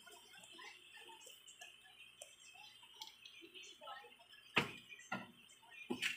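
Plastic TV back cover being handled against the set's metal frame: scattered light clicks and taps, then two loud knocks about four and a half and six seconds in.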